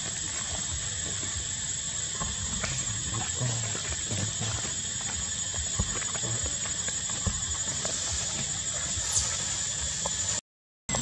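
Outdoor ambience of a steady, high-pitched insect drone, with scattered light rustles and knocks from monkeys moving through tree branches and leaves. The sound cuts out briefly near the end.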